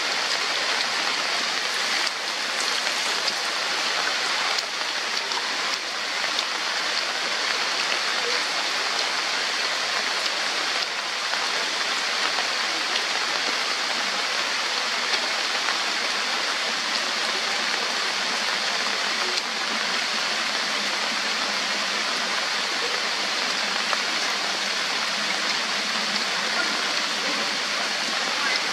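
Heavy rain falling on rainforest foliage, a steady, even hiss.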